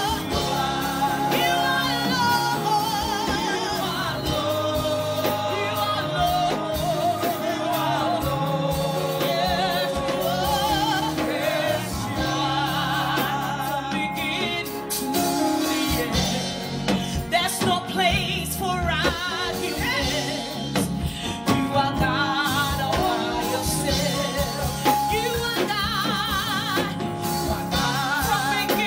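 Live gospel worship song: a woman's lead vocal, with vibrato, and backing singers over a band of bass guitar and drums.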